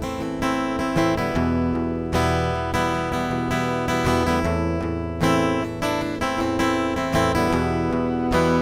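Acoustic guitar strummed steadily through a song, an instrumental stretch with no singing.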